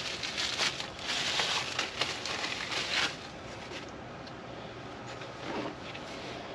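Plastic parts bag crinkling and rustling as it is opened and handled by hand, for about three seconds, then quieter handling.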